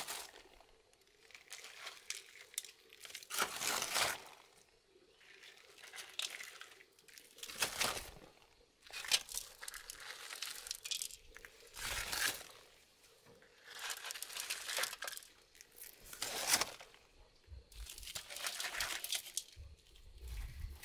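Large fresh leaves lining a woven basket rustling and crinkling as crisp fried chicken drumsticks are pressed in among them. The rustles come in separate spells of about a second, every two seconds or so.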